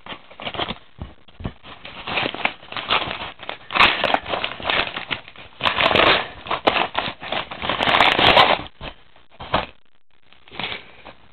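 Padded kraft-paper mailer crinkling and rustling as it is cut open with scissors and handled, in several dense bursts that stop shortly before the end, followed by one short rustle.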